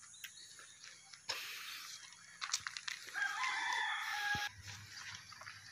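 A rooster crowing once, a single crow of a bit over a second, starting about three seconds in.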